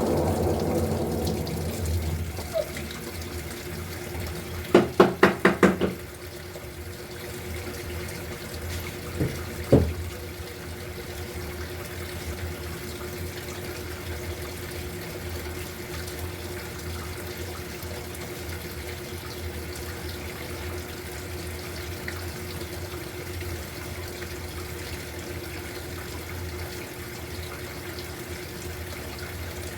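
Electrolux LTE08 top-load washing machine filling with water, a steady rush of water into the tub. About five seconds in there is a quick run of five short tones, and a double knock just before ten seconds.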